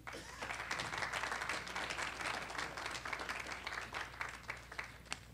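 Audience applauding: many hands clapping together, swelling up just after the start and thinning out toward the end.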